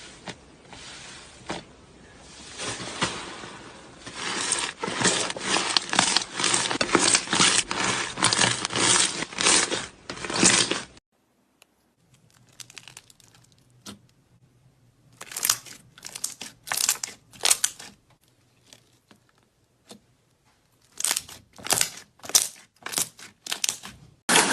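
Slime being squeezed and stretched by hand, giving dense crackling and popping for about eleven seconds. After a sudden cut come separate short bursts of crackling clicks.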